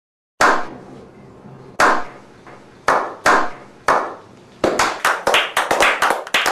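A slow clap: a handful of single hand claps about a second apart, quickening near the end into faster clapping from several people.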